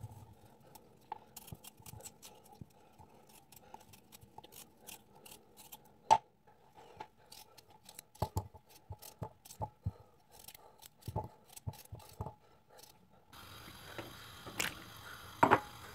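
A knife cutting raw potatoes: a run of short scraping strokes and small knocks. Near the end a steady hiss comes in, and the cut pieces drop into a pot of water with two louder splashes.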